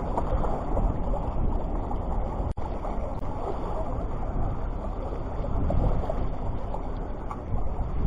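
Steady wind noise buffeting the microphone over the rush of surf, with a momentary dropout about two and a half seconds in.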